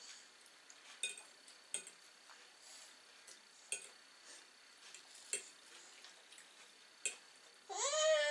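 Faint scattered clicks and light knocks, with a toddler eating bread at the table. Near the end comes a young child's voice, one high call that rises and then falls in pitch.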